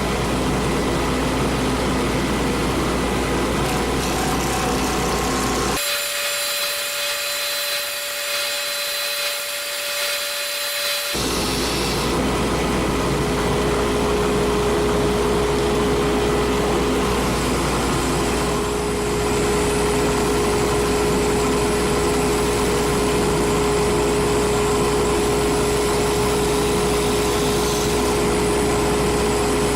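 Electric wood lathe running steadily with a constant motor whine and low hum, as in turning a sycamore pen blank. For several seconds around the middle the low hum drops out and a higher, thinner tone takes its place before the steady running returns.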